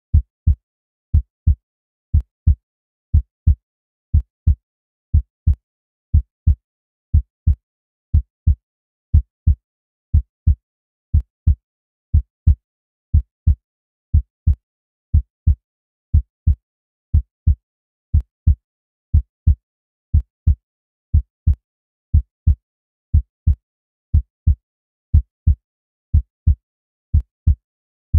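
Heartbeat-like sound effect: low double thumps, one pair about every second, with silence between the pairs.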